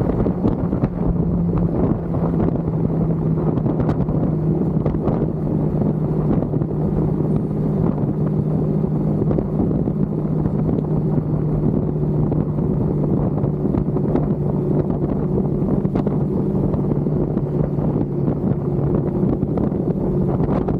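Suzuki Inazuma motorcycle engine with stock exhaust running at a steady cruising speed. The note holds nearly constant, shifting slightly in pitch near the end, under steady wind noise on the microphone.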